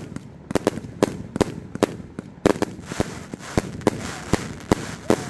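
A 228-shot consumer firework cake firing in rapid succession, sharp reports about two to three a second, with a crackling hiss behind them from about halfway through.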